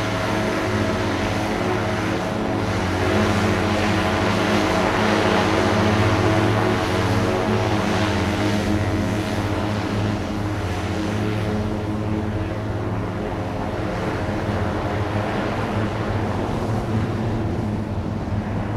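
Archer eVTOL aircraft in slow, low flight on its twelve electric rotors: a steady whirring hum made of several pitches at once, swelling a little a few seconds in and easing off later.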